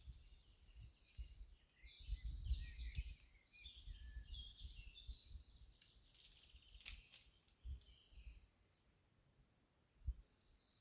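Songbirds chirping and trilling, with wind gusts rumbling on the microphone and a few sharp clicks, the loudest about two and a half and seven seconds in.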